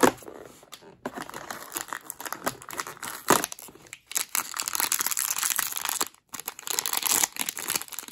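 Small blind bag being torn open and crinkled by hand: irregular crackling and rustling, with sharp crackles at the start and about three seconds in.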